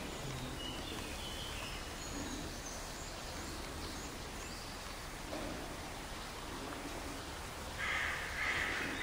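Steady faint ambience in a large empty ruin, with a few faint high bird chirps; near the end, a louder, harsh bird call.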